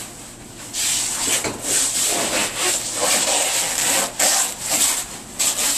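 Tight plastic wrapping being pulled and scraped off a new refrigerator: a run of rasping strokes, about two a second, starting about a second in.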